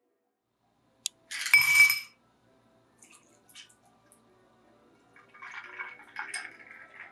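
Ice cubes dropped into a glass tumbler about a second in, a short clatter with a ringing glassy clink. Almond milk is then poured from a carton over the ice, splashing, with light clinks of ice against the glass.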